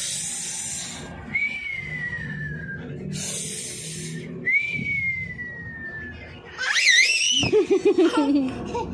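A person making funny mouth noises: a hissing blow, then a falling whistled tone, done twice. A short, high, wavering squeal follows near the end.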